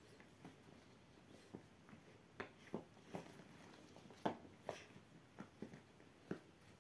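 Bubbles on large silicone pop-it fidget toys being pressed by hand: about ten irregular pops, the loudest a little past the middle.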